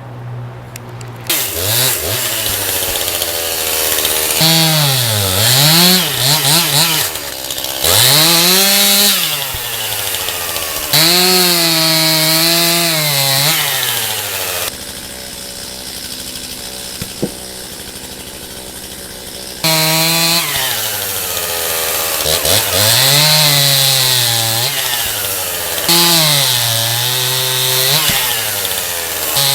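Stihl MS 271 two-stroke chainsaw with a 20-inch bar bucking an oak log: the engine revs up and sags in pitch again and again as it loads in the cuts. About halfway through it eases off to a lower, quieter run for around five seconds, then revs back into the wood.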